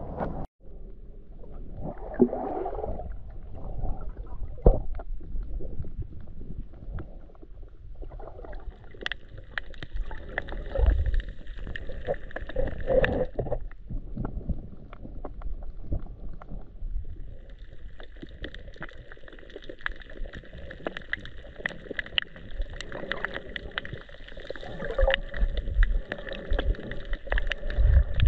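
Muffled underwater sound picked up by a submerged action camera: a low rumble of moving water with scattered clicks and crackles. A faint steady high tone comes in about a third of the way through, drops out for a few seconds, then returns.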